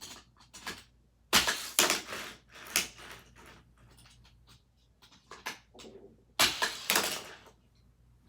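Die-cast Hot Wheels toy cars clattering and knocking against plastic track pieces as they are pushed along, in quick rattling clicks with two loud bursts, one about a second and a half in and one near the end.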